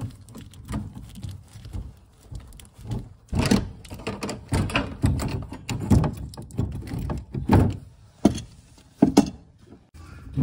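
Irregular knocks, thuds and scraping of a hand tool working on an old gas pipe and its bayonet fitting inside a wall cavity, to cut the pipe out.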